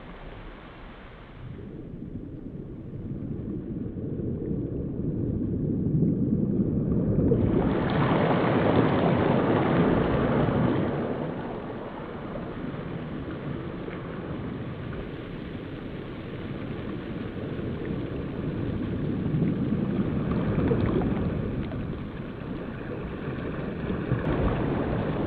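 Wind blowing on the microphone over sea surf washing on a beach, a steady rushing noise that grows louder about two seconds in and again at about seven seconds, then eases a little.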